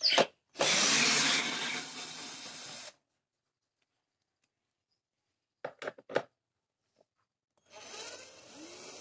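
Cordless drill-driver spinning screws out of a plastic air filter box: a short whirr, then about two seconds of running. After a silence come three quick trigger blips about six seconds in, and a steady hiss near the end.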